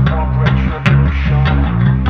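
Background music: guitar-led rock backing track with bass guitar and a steady beat.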